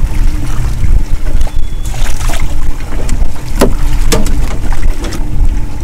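Heavy wind rumble on the microphone over a steady low hum, with a string of sharp taps and slaps from about a second and a half in, as Spanish sardines on a sabiki rig are swung aboard and flap against the boat.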